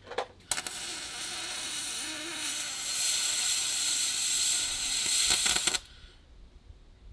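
Electric arc welding on aluminium C-channel. Two short clicks as the arc is struck, then a steady crackling hiss for about five seconds that stutters briefly and cuts off as the arc is broken.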